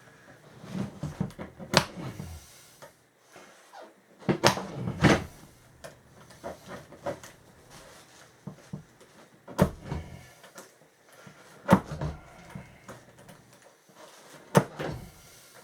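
Irregular sharp clicks and knocks, about six louder ones among smaller taps, from the parts of an old office chair being handled while wires are cut off it with a box cutter.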